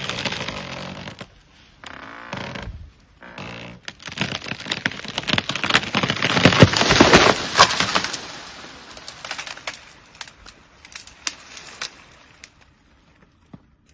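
Tree wood cracking and snapping as an elephant pushes the tree over, with the loudest run of breaking and crashing from about four to eight seconds in as the tree goes down. Scattered smaller snaps and twig cracks follow and thin out toward the end.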